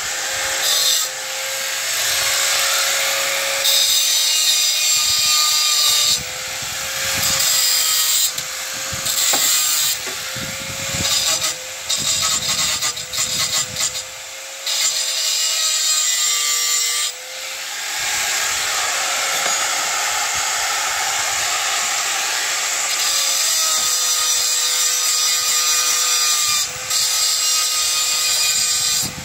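Electric power tool working into the wood of a barn door, running in long stretches with a few short pauses and changes of load. A steady hum runs underneath.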